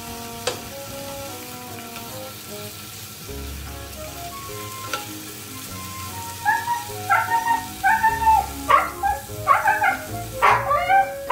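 Meat sizzling on a tabletop grill, with a couple of sharp clicks from the tongs. About six seconds in, a dog starts whining in short, rising-and-falling calls that grow louder toward the end, over background music.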